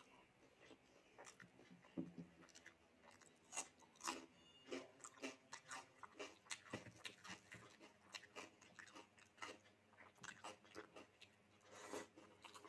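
A person chewing food close to the microphone: soft, irregular crunches and mouth clicks, a few of them louder.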